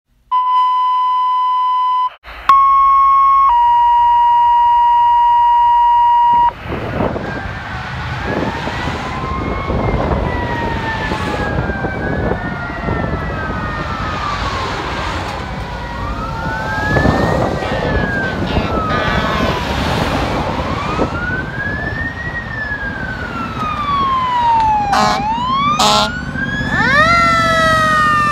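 Steady electronic tones for the first few seconds, then fire engine sirens wailing in slow rising and falling sweeps over traffic, with more than one siren overlapping. Near the end come two short blasts, then faster sweeping siren and a low engine rumble as the engine gets close.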